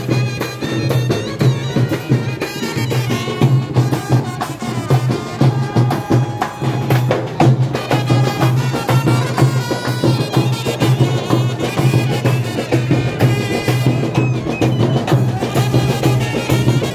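A live brass band playing a fast dance tune: trumpets carry the melody over a dense beat of bass drums with mounted cymbals and snare drums.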